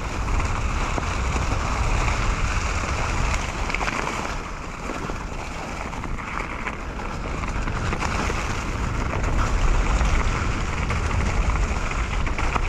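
Mountain bike rolling down a wet, leaf-covered dirt trail over slippery roots, its tyres on damp ground under wind rushing over the helmet camera's microphone. A steady rush with a deep rumble underneath, a little louder in the later seconds.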